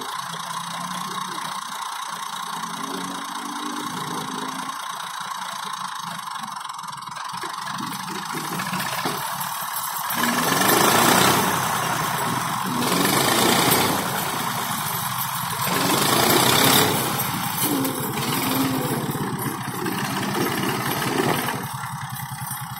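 Massey Ferguson tractor's diesel engine running steadily, then revving hard about ten seconds in, in three surges, as the tractor strains against a tow rope.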